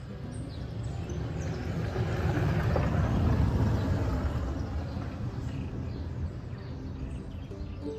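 A vehicle passing by, growing louder to its loudest about three seconds in and then fading away.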